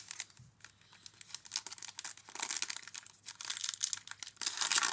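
A football trading-card pack's wrapper being torn open and crinkled: a dense run of rustling crackles that gets louder about two seconds in and again near the end.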